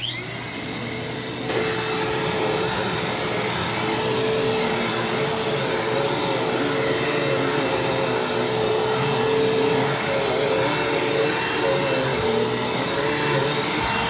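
Dirt Devil SD12000 hand vacuum switched on, its motor whining up to speed within half a second and then running steadily, a little louder from about a second and a half in, as the nozzle is worked over carpeted stair treads.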